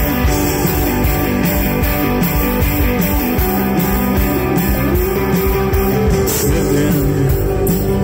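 Live rock band playing at concert volume: electric guitars, bass guitar, drums and keyboard in a loud, steady amplified mix.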